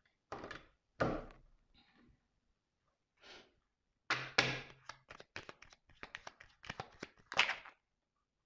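A deck of tarot cards handled by hand: a few separate knocks, then a quick run of short card slaps, about five a second, as the deck is shuffled.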